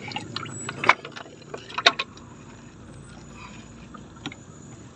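Scattered sharp clicks and knocks of fishing rods, reels and tackle being handled against the planks of a small wooden boat, the loudest a little under two seconds in, over a low steady background.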